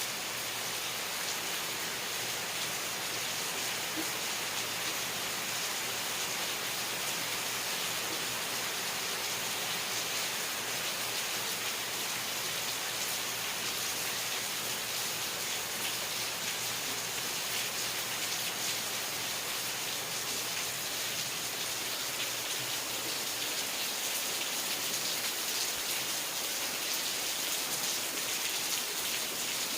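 Steady rain falling, an even hiss dotted with the patter of countless drops, unchanging throughout.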